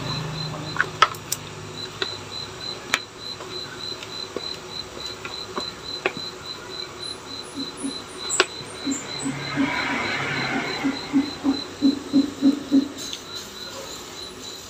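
A cricket chirping steadily, about three chirps a second, with scattered sharp clicks. From about nine seconds in there is a quick run of louder low knocks.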